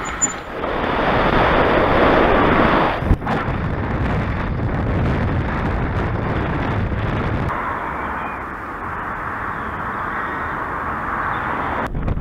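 Wind rushing over the camera microphone while riding a bicycle: a steady, loud rush of noise that breaks off briefly about three seconds in and shifts in tone around seven and a half seconds.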